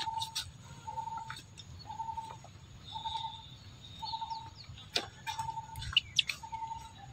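A bird repeating a short, even, low note about once a second. A few quick, sharp chirps come in near the end.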